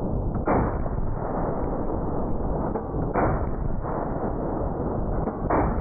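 .50 BMG rifle firing three shots about two and a half seconds apart. Each shot is drawn out rather than sharp, over a steady rumble.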